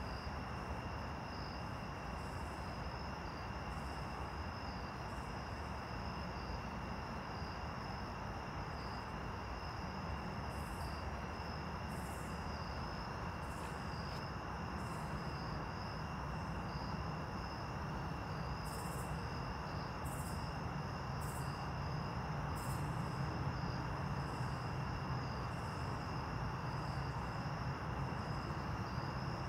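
Night insect chorus trilling steadily at two high pitches, over a low steady rumble that grows a little louder in the second half.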